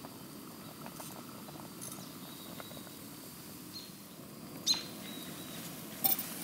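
Camp cooking at a backpacking stove: a low steady hiss under a few light clinks of pot and utensil, the sharpest a little under five seconds in and two more about six seconds in.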